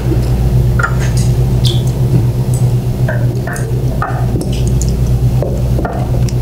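Table-side eating sounds: chopsticks and wooden sushi boards clicking and knocking now and then, with chewing, over a steady low hum.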